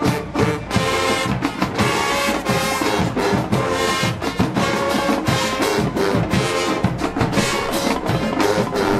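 High school marching band playing: brass horns holding loud chords over a steady drumline beat.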